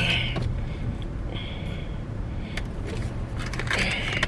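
Car engine idling, heard from inside the cabin as a steady low hum, with a few small clicks and rustles and a short high-pitched sound about a second and a half in.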